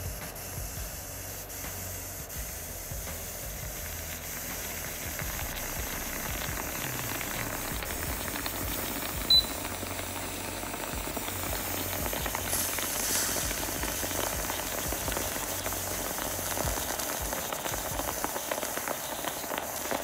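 Bialetti aluminium moka pot hissing and sputtering as hot water and steam force coffee up through the spout into the upper chamber, the stage at the end of the brew when the flow turns pale and foamy. The hiss grows a little louder toward the middle, and a single short sharp tick sounds about nine seconds in.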